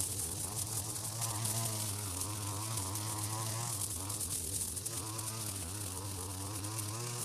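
A strimmer (string trimmer) running continuously with a buzzing whine whose pitch keeps rising and falling as it cuts through riverbank vegetation.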